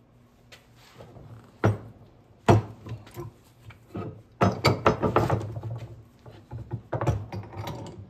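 Pipe wrench clanking and rattling on the metal pipe fittings of a 30-plate flat plate heat exchanger as they are tightened, in irregular sharp knocks and clicks. The loudest knock comes about two and a half seconds in, and a quick run of rattling clicks follows around the middle.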